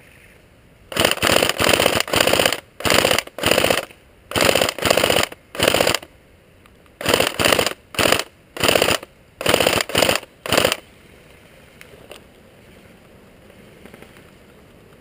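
Airsoft rifle firing a dozen or more short full-auto bursts, each a rapid string of shots, in quick succession; the firing stops about eleven seconds in.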